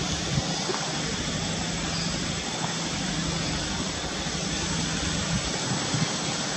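Steady rushing outdoor background noise with a faint low hum, broken by a few soft clicks.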